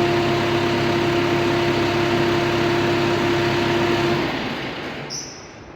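Tractor engine running with a steady whine, which drops away about four seconds in, leaving only a much quieter background.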